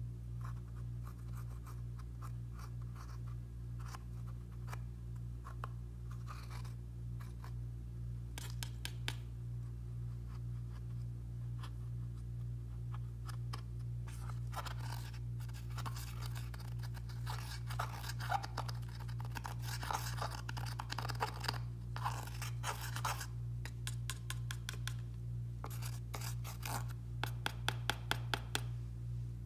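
A plastic spatula scraping and digging pressed eyeshadow out of its palette pans: dry, crumbly scratching in many short strokes, busiest in the second half. A steady low hum runs underneath.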